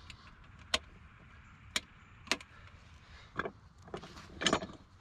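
Landzie peat moss spreader, a green steel-mesh drum roller, being handled and readied to roll, giving irregular sharp metal clicks and rattles, about five of them, the loudest near the end, over a low rustle.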